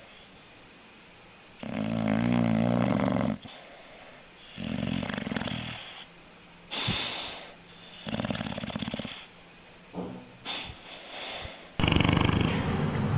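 Dog snoring: four snores about two seconds apart, the first long with a buzzing pitched tone, followed by a few softer, shorter breaths. Near the end a louder, steadier noise starts suddenly.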